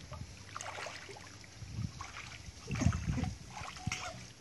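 Swimming-pool water sloshing and lapping around a person moving through it, with a louder slosh about three seconds in.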